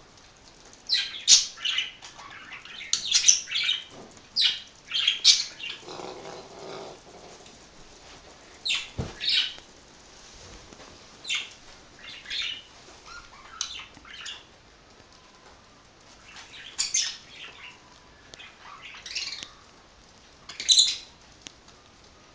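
Pet budgerigars chirping and squawking in short, irregular calls, with bursts of wing flutter.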